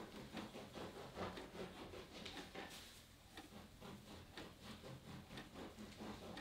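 Soft, irregular taps, clicks and scrapes of hands making a sandwich at a kitchen counter, a few small knocks a second.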